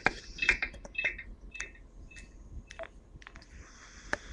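Phone keypad buttons being pressed: a run of clicks and short high beeps, with a faint steady tone coming in near the end.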